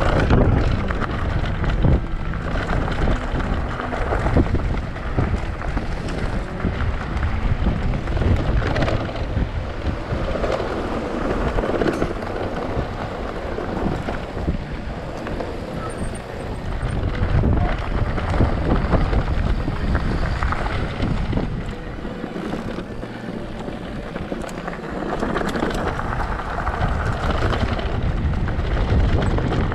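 Wind buffeting the microphone of a mountain bike's rider-mounted camera on a descent, with a dense rumble and many small knocks and rattles from the bike over rough trail.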